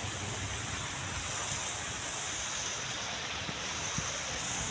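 Steady rain falling, a constant even hiss with no letup.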